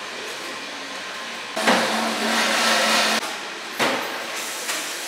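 Coffee-shop background noise, with a loud rushing, whirring burst from the espresso bar's drink machines starting about a second and a half in and cutting off sharply about a second and a half later.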